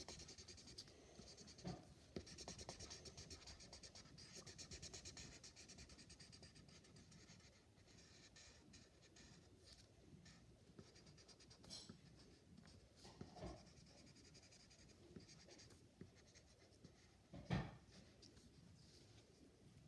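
Felt-tip marker scratching on a small piece of paper in faint, quick strokes, thinning out after several seconds. Two soft knocks near the end, the second louder.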